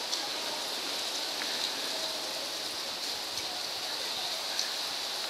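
Steady hiss of background noise with a few faint, scattered ticks and rustles.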